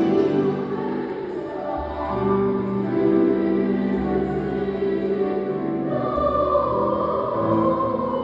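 Choir singing slow, held chords, with deep sustained bass notes coming and going underneath; the upper voices grow brighter about six seconds in.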